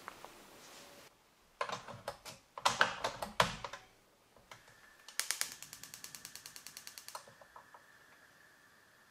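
Portable butane gas stove being lit: a clatter of irregular knocks and clicks from the control knob and pot, then a rapid, even run of igniter clicks, about ten a second for some two seconds.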